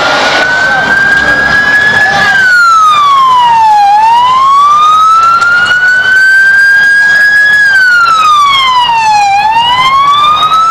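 Emergency vehicle siren wailing: the pitch climbs slowly and drops back more quickly, about twice over. Street noise sits under it for the first couple of seconds.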